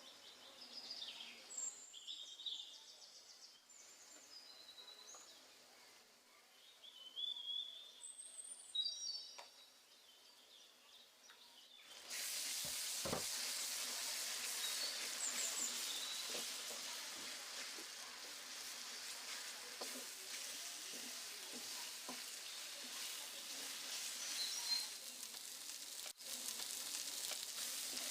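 Birds chirping faintly, then about twelve seconds in a loud, steady sizzle starts as food fries in hot oil in a pan, with a knock just after it begins.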